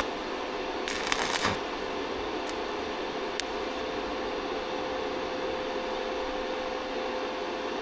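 Stick (arc) welding: the electrode arc crackles and sizzles in a short burst about a second in, then stops. Afterwards a steady hum with one held tone remains, broken by two sharp ticks.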